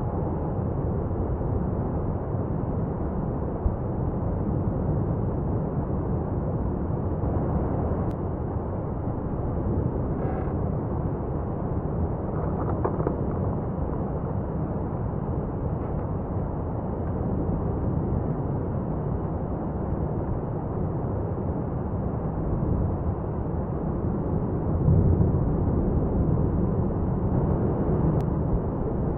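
Etna's South-East crater in paroxysmal eruption: the lava fountain's continuous deep rumble, strongest in the bass, swelling louder near the end, with a few faint sharp pops.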